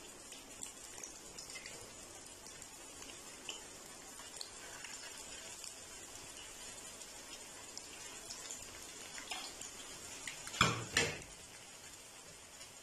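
Raw-mince beef kebab patties shallow-frying in hot oil in a frying pan: a steady light sizzle with scattered small crackles. About ten and a half seconds in come two brief loud sounds, a fraction of a second apart, as another patty goes into the pan.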